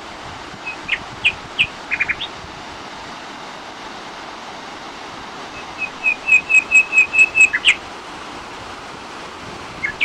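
A songbird calling: a few short, high chirps, then about halfway through a quick run of about ten repeated notes, all over a steady background hiss.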